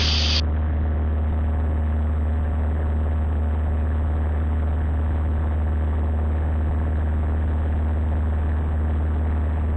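Cessna 172's engine and propeller droning steadily in flight, heard inside the cabin, with a deep, unchanging hum.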